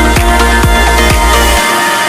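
Electronic background music with a heavy bass line and a beat about twice a second; the bass drops out near the end.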